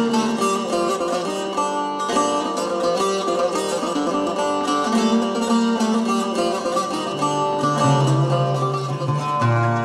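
Lavta, the Greek fretted lute, plucked in a quick instrumental passage of many short notes, over long held low notes.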